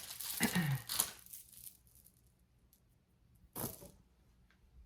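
Packaging crinkling and rustling as jewelry is handled, dense for about the first second and a half. A short rustle comes about three and a half seconds in.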